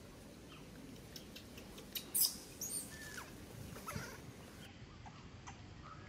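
Newborn macaque giving a few short, very high-pitched squeaks, the loudest about two seconds in, as its mother pulls it back by the leg. Faint scattered clicks and rustles of dry leaves underneath.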